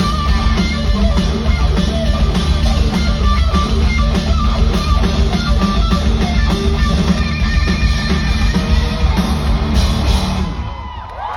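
Rock band playing live: distorted electric guitar, bass and drum kit in a loud, driving instrumental passage. About ten and a half seconds in, the music breaks off.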